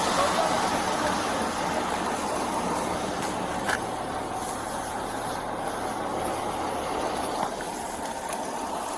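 Steady background vehicle noise, a low rumble under a broad hiss, with a couple of faint clicks.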